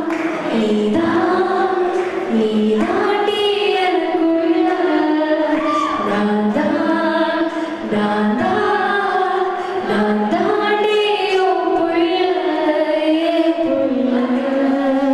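A woman singing a Tamil song live through a handheld microphone, with long held notes and ornamented turns in the melody.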